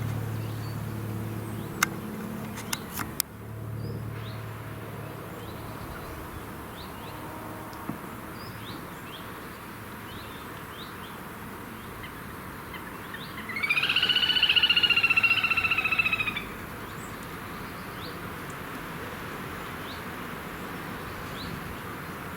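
Wild birds calling outdoors: scattered short high chirps, and about two-thirds of the way in one louder, rapidly pulsing trilled call lasting about three seconds.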